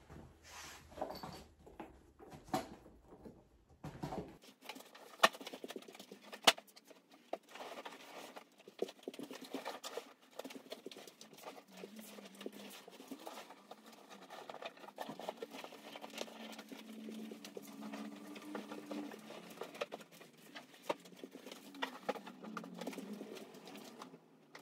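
Small items knocking and rustling as they are dropped into a handbag. After a cut, bedding rustles and soft taps sound as a bedspread is pulled straight and pillows are set in place.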